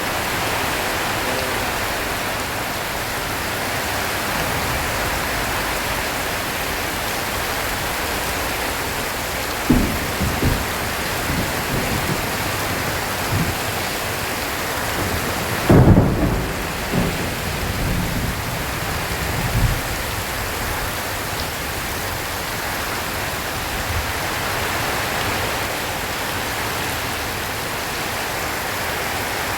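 Heavy rain falling steadily on a tin roof. Low rumbles of thunder come about a third of the way through, and again more loudly just past the middle.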